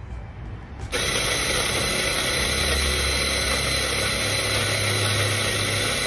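Pronto OD electric espresso grinder running a timed grind of about five seconds: the motor and burrs start about a second in, grind coffee at a steady pitch, and cut off abruptly as the timer runs out.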